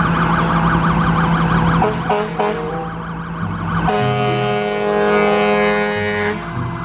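Fire engine siren in a fast warbling yelp, broken by a few short horn blasts about two seconds in. A long, steady horn blast follows from about four seconds, then the siren's wail starts rising again near the end.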